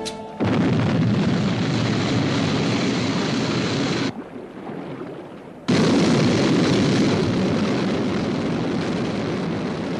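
Sound effect of the Sky One interceptor's rocket engines firing at launch: a loud, rushing roar that starts suddenly, sinks to a low rumble for about a second and a half around four seconds in, then comes back at full force.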